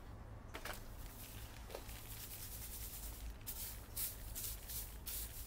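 Potting soil and bark chips being rubbed and shaken through a stainless steel mesh sieve by a gloved hand: a dry scratchy rustle, turning into a run of quick repeated rustles, about three a second, in the second half.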